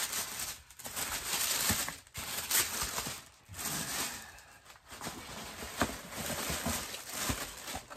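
Tissue paper rustling and crinkling in uneven spells as it is pulled out of a cardboard shoe box and unwrapped from around a pair of sneakers.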